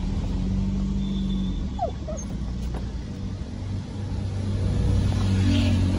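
Steady low rumble of a slowly moving car, with a Labrador giving a short, high whine about two seconds in.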